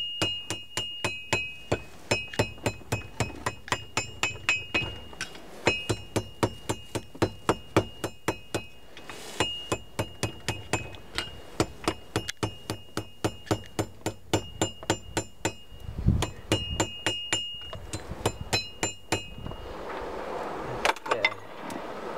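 Blacksmith's hammer striking hot iron on a steel anvil, a fast run of blows, about four a second, each leaving a high ringing tone from the anvil. The blows come in several bursts with short pauses and thin out near the end.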